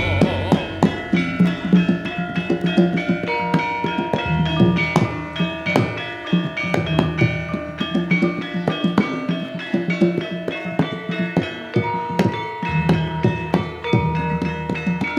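Javanese gamelan playing an instrumental passage between sung verses: metallophones ringing held notes over a quick rhythm of drum strokes.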